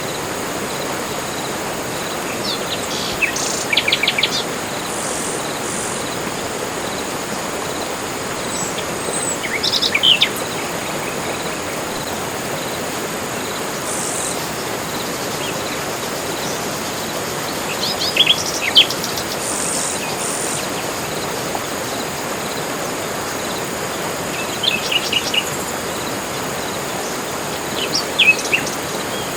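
Tropical forest ambience: a steady insect drone with a constant high whine over an even hiss, and birds calling every few seconds in short bursts of rapid chirps and trills, with a few high thin notes.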